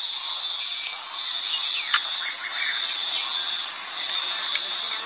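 Insects buzzing steadily at a high pitch, breaking off briefly a few times, over a hiss, with a sharp click about two seconds in.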